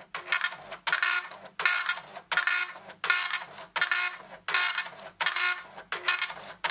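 Commodore MPS-803 dot-matrix printer printing line after line: the print head buzzes across the paper in short passes, about three every two seconds, with a brief pause between each as it goes back and forth.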